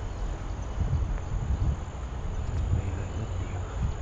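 Uneven low rumble of wind and movement noise on a walking camera's microphone, over a steady high-pitched insect drone.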